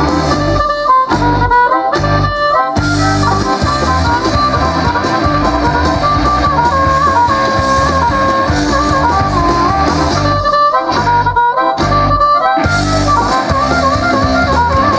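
Live rock band playing a boogie-woogie shuffle on electric guitars and drums, with a harmonica played into a vocal microphone carrying the lead. The band cuts out in short stop-time breaks, three in a row near the start and three more around ten seconds in.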